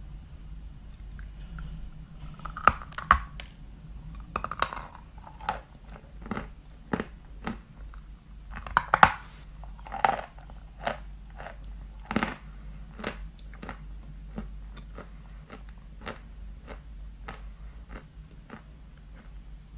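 A person biting into and crunching white chalk in the mouth. Loud crunching bites come about three seconds in and again around nine to ten seconds, then steadier chewing at about two crunches a second.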